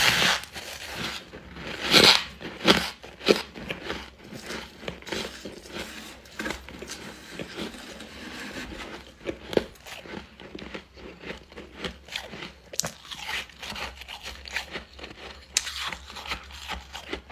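Refrozen freezer frost being bitten and chewed close to the microphone: a run of crunches, the loudest near the start and about two seconds in, then steady smaller crunching.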